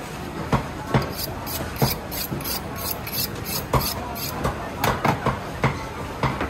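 Knife being sharpened with a run of quick scraping strokes, about four a second, for roughly two seconds. Sharp knocks come before and after the strokes.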